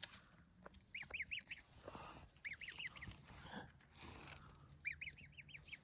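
A gosling peeping: three quick runs of short, arched, high chirps, about a second in, at about two and a half seconds, and near the end.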